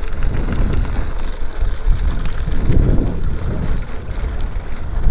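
Wind buffeting the microphone of a camera riding along on a bicycle, over a rolling, rattling rumble of tyres on a loose gravel road.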